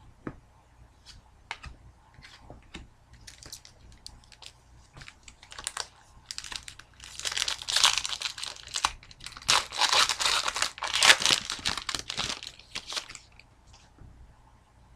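Foil wrapper of a trading-card pack crinkling and tearing as it is opened and crumpled, loudest in a dense spell from about halfway until near the end. Light scattered clicks come before it.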